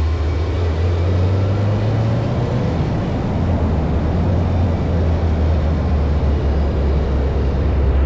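Ferrari 308's V8 engine running with a steady low drone, misfiring and down on power.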